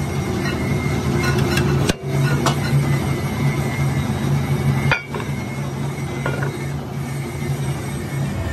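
Rotary disc shear running with a steady low hum as it cuts a ring from steel plate. Sharp metallic clinks and knocks come from the plate against the machine, and the sound drops out briefly twice.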